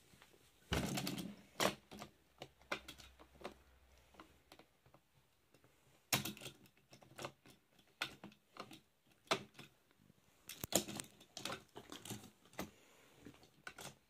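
Irregular plastic clicks and knocks as small die-cast toy engines are moved and tapped about on a plastic pop-up toy and its buttons are handled, with a louder knock about a second in.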